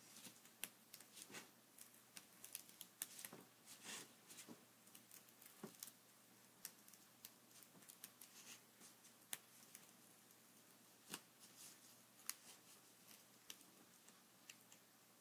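Slender pointed scissors snipping through thin paper in short, quiet cuts, heard as many small clicks at irregular spacing, more frequent in the first half, during fine freehand paper-cutting (kirie).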